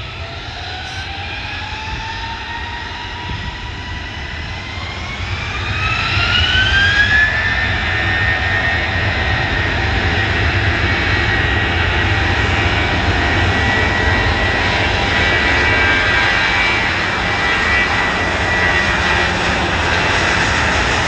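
Airliner's jet engines spooling up to takeoff thrust: a whine rises in pitch for about seven seconds, the noise swells, and then it holds at a steady, loud full-power roar.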